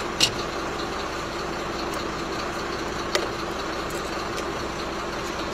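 Steady hum of an idling vehicle engine, with two sharp clicks, one just after the start and one about three seconds in.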